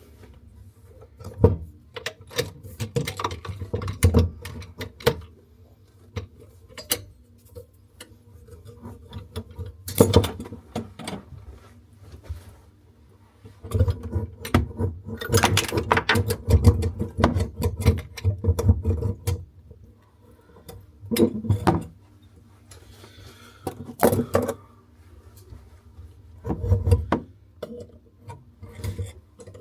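Hand tools clicking and knocking on a basin tap's metal fittings, in irregular runs of rapid clicks with quieter gaps between.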